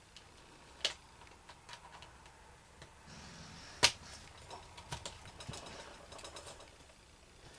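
Plastic toy race-track pieces being handled and clipped together: scattered light clicks and rattles, with a sharp snap just under four seconds in and a smaller one about a second in.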